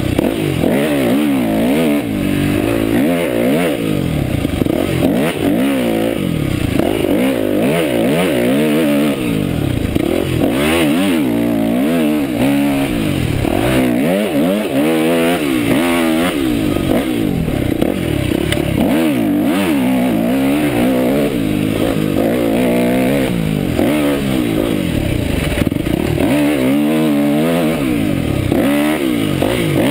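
Yamaha YZ250F four-stroke single-cylinder dirt bike engine revving up and down while being ridden. Its pitch rises and falls every second or two as the throttle is opened and closed.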